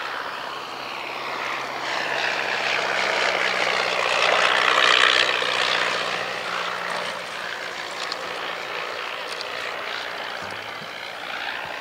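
Miles Magister's de Havilland Gipsy Major inverted four-cylinder air-cooled engine and propeller on a low flypast, growing louder to a peak about four to five seconds in and then fading as the plane passes.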